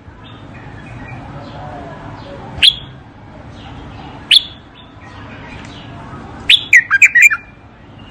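Bulbul singing: two single sharp notes a couple of seconds apart, then a quick phrase of several whistled notes near the end.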